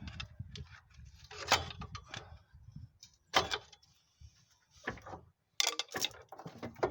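A hammer striking the steel front suspension parts of a 2011 Ford Focus to knock the axle free: about six sharp metallic blows at uneven intervals, each with a short ring, with some clatter in between.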